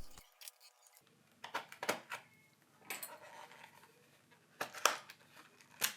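A few faint, short clicks and taps, scattered and irregular: small hard objects being handled on a repair bench.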